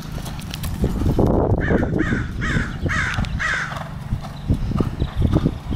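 A bird calling five times in quick succession, about two calls a second, over the dull thuds of a horse cantering on arena dirt and a low rumble of wind.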